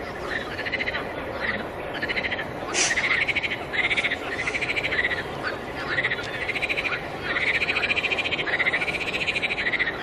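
Frogs calling in a pond chorus: pulsed croaking calls, each a quick rattle of pulses, one following another about every second, over a steady wash of more distant frogs.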